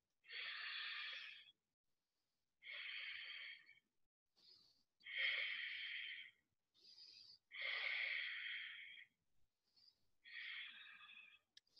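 A woman breathing audibly while holding a yoga side plank. It comes as about five long, faint, even breaths of a second or so each, with short silent gaps between them.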